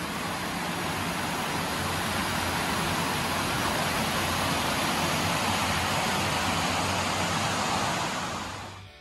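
Fast-flowing stream rushing over rocks: a steady, loud rush of water that fades out near the end.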